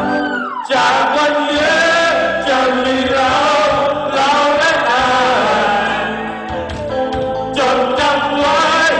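A song with backing music and a group of voices singing along together, with a brief falling slide in pitch right at the start.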